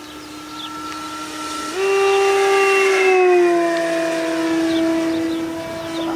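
Radio-control model plane's motor and propeller droning in flight, a steady whine. About two seconds in it jumps up in pitch and gets louder, then slides back down a little a second later and holds.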